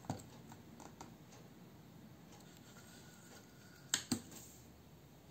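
Small metal clicks and handling noises from an Ica Ideal 246 folding plate camera as its lens standard is slid back into the body, with two sharp clicks close together about four seconds in.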